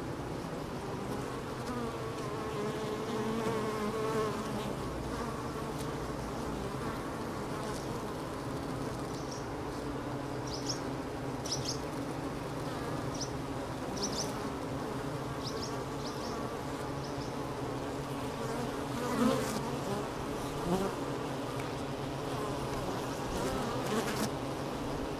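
Honeybees buzzing at a hive entrance: a steady hum of many wings, with a few brief louder swells in the second half.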